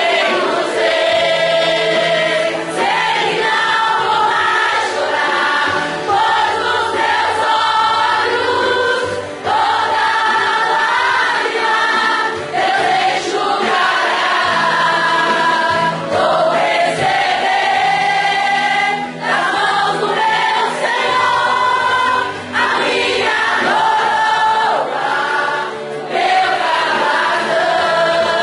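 A women's choir singing a Portuguese gospel praise song, voices held and full without a break.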